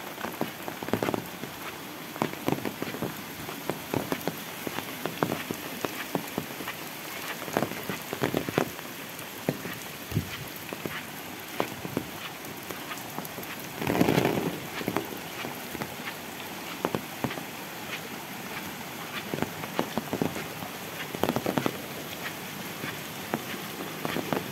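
Steady rain falling, with many sharp, irregular taps of drops and a louder burst about fourteen seconds in.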